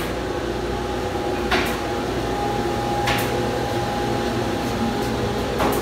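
Woodworking shop machinery running with a steady hum made of several tones, broken a few times by short hissy bursts about a second and a half apart.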